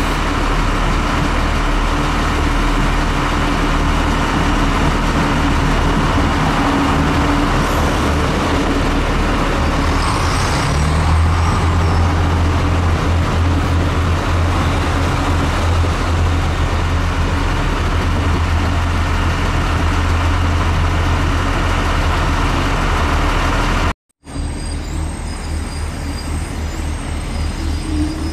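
Irish Rail diesel train running in the station, its engine a steady low drone that grows louder about ten seconds in. A cut near the end leaves a quieter train sound with faint high tones.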